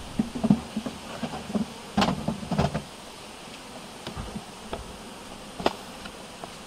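Honeybees buzzing around an open hive, with wooden hive frames knocking and scraping against the box as they are pried loose and lifted out. The loudest cluster of knocks comes about two seconds in, and there is a single sharp knock near the end.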